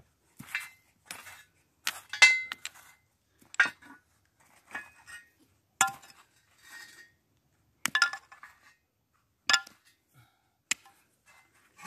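Stones knocking and clinking against a steel car wheel rim as they are lifted off it by hand. It is a series of about a dozen separate sharp knocks, irregularly spaced, the loudest about two seconds in.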